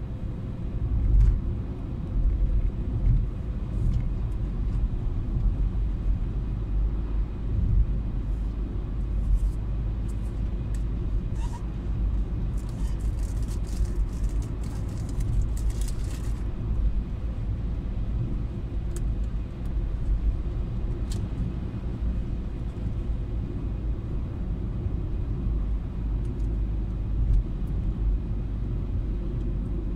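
Car driving along a road, heard from inside the cabin: a steady low rumble of engine and tyres, with a few louder thumps in the first several seconds and a patch of faint crackling about halfway through.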